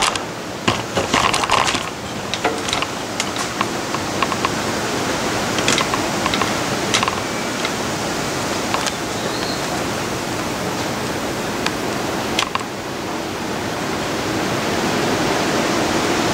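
Steady hiss with scattered light clicks and knocks, most of them in the first few seconds.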